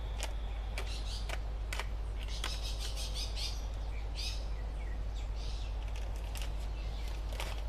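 Birds chirping several times over a steady low hum, with scattered sharp clicks and crinkles from hands working a plastic nursery bag and soil.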